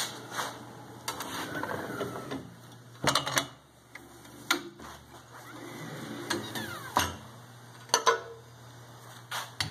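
Clicks, clunks and sliding scrapes of a homemade manual cylindrical screen printer being worked by hand: the drawer-slide carriage and squeegee move across the inked screen over a glass mason jar. Near the end the glass jar is lifted out of its carriage.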